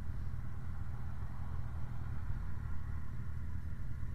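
Motorcycle running steadily while riding along a road, heard from the bike itself: a low, even rumble of engine and road noise.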